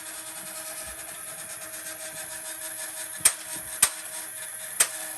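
Sharp plastic clicks from a Nerf blaster being handled and primed for a shot, three of them in the second half, over a steady low hum.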